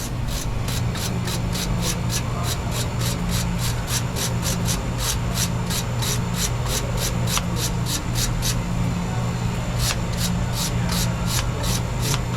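Brush scraping across the fins of a dust-clogged refrigerator condenser coil in quick repeated strokes, about four a second. Underneath is the steady low hum of the refrigeration unit running.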